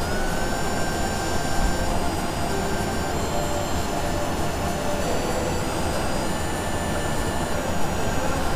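Steady rumbling noise with several high, thin squealing tones held over it. The tones rise slightly at the start.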